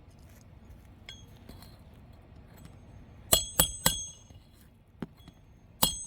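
Roofer's hatchet driving roofing nails into a replacement asphalt 3-tab shingle: three quick strikes a little past the middle and one more near the end, each with a short metallic ring.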